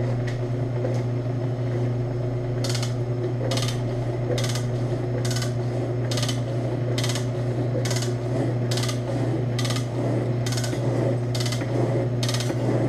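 Ammco 7-inch metal shaper running with a steady motor and drive hum. From about three seconds in, a sharp scraping click comes with each stroke of the ram, a little more than once a second, as the carbide lathe bit takes its cuts.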